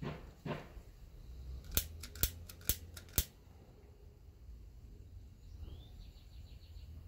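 Piezo igniter of a butane wand lighter clicking four times, about half a second apart, as it is sparked to melt the cut end of nylon webbing so it won't fray.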